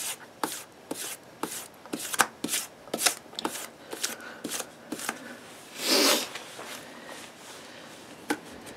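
1500-grit sandpaper on a hand-held sanding block being stroked along the edge of a steel axe bit, short scraping strokes about two a second that stop about five seconds in. A longer, louder rustle follows, then a single click near the end.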